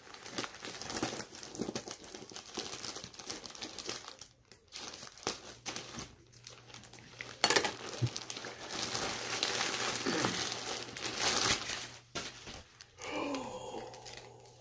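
Plastic shipping mailer bag crinkling and rustling as it is handled and torn open, with one sharp louder crack about halfway through and a short lull about four seconds in.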